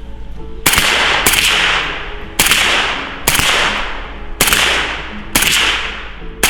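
Suppressed AK-pattern rifle fired six times in slow succession, about one shot a second, each sharp crack trailing off into a short hiss.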